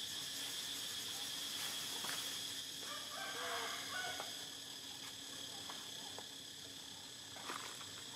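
A short animal call about three seconds in, over a steady high drone of insects.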